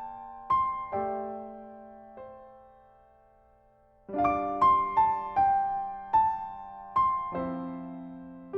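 Solo piano music: a slow melody of single struck notes that ring and fade. It breaks off about two and a half seconds in and starts again with a chord about four seconds in.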